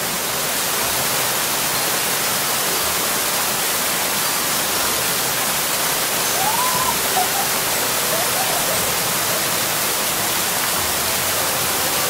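A curtain waterfall pouring down a stone-block wall into a pool: a steady, loud rush of falling and splashing water.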